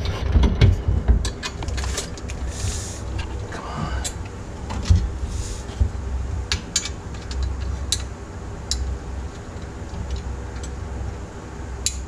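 Scattered clicks and taps of a metal floor-shifter bracket and its hardware being handled and fitted into a car's transmission tunnel, over a steady low rumble.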